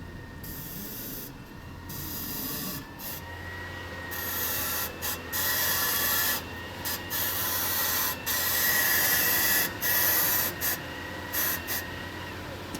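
A Lexus IS300 making a high-pitched squeaking, rubbing noise that comes and goes in stretches of up to a couple of seconds, over a steady low hum.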